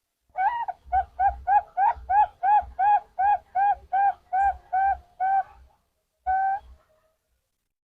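Zebra dove (perkutut) cooing: a fast run of about fifteen short, clipped coo notes, roughly three a second, then one longer held note near the end.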